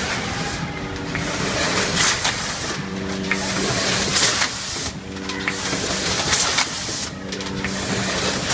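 Premade pouch filling and sealing machine running, its cycle repeating about every two seconds. A hum comes and goes with the cycle, and short sharp hisses of air come from its pneumatic cylinders.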